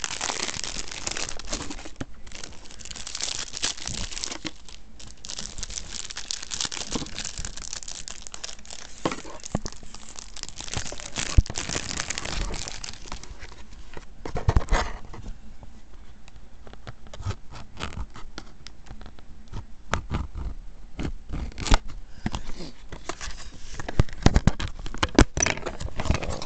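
Plastic wrapping on a DVD case crinkling and tearing as it is pulled off, dense for the first dozen seconds or so. After that come scattered sharp clicks and knocks from handling the plastic case, a few louder ones near the end.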